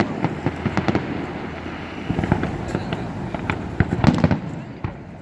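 Fireworks display going off: a steady haze of crackling with sharp bangs, in dense clusters about two seconds in and again around four seconds.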